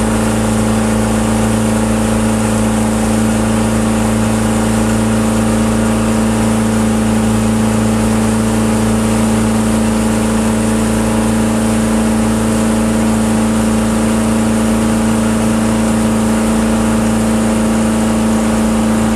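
Motorboat engine running at a constant speed under the load of towing a tube: a steady, unchanging hum over the rush of the churning wake.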